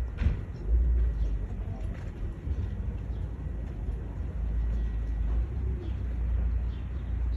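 A steady low rumble, the loudest sound, with faint short bird calls over it.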